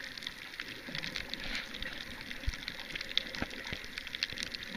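Underwater ambience picked up by a submerged camera on a reef: a steady hiss of water, full of fast little crackling clicks. A few duller knocks come near the middle.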